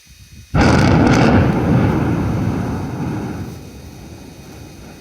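A sudden loud boom about half a second in, rumbling and slowly fading over about three seconds.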